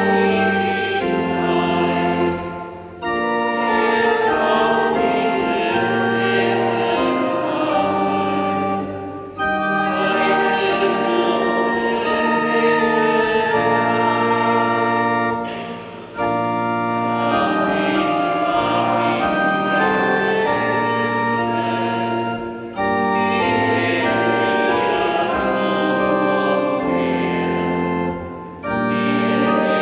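Organ playing a hymn with singing voices, in lines of held chords that pause briefly about every six and a half seconds.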